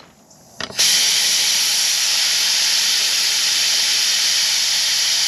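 Compressed air hissing out through a Schrader valve as a hand-held dial pressure gauge bleeds air from the truck's suspension leveling air bags. A short click under a second in, then a loud, steady hiss.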